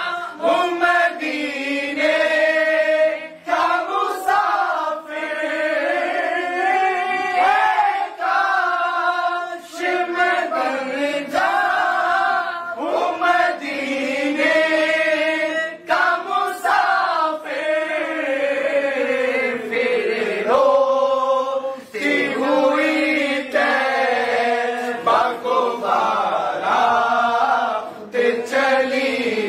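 Unaccompanied naat, an Urdu devotional song in praise of the Prophet, sung by a man's voice in long melismatic phrases, with other men's voices joining in like a chorus.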